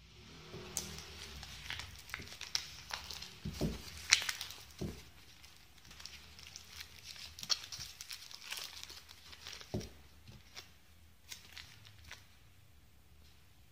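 Foil-lined paper wrapper being unfolded and pulled open by hand, crinkling and crackling irregularly, busiest in the first half and thinning out towards the end. A few dull knocks come in between.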